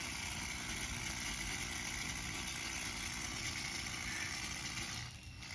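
An engine idling steadily, with a steady hiss over it.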